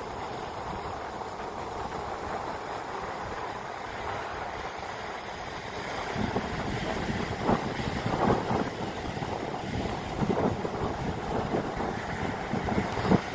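Ocean surf breaking and washing up the beach, a steady rush of water, with irregular wind rumble on the microphone coming in gusts from about six seconds in.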